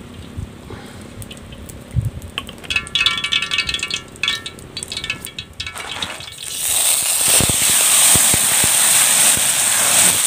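Stone crabs hitting hot oil in a wok over a wood fire: a sudden loud sizzle and spatter begins about six seconds in, with sharp crackling pops, as the oil flares up.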